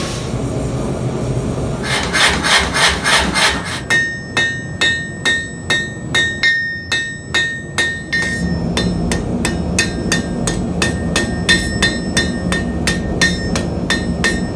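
Blacksmith's hand hammer striking steel on an anvil, starting about two seconds in, in a steady run of blows about two to three a second with a ringing tone over them. A steady rushing noise sits under it before the first blow.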